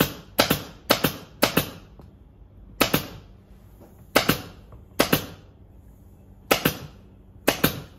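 Pneumatic upholstery staple gun firing about a dozen sharp shots at an uneven pace, several in quick pairs, as fabric is stapled to the sofa frame.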